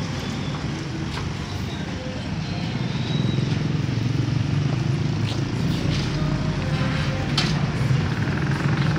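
Small piston air compressor running with a steady drone, getting a little louder about three seconds in, with a few light knocks over it.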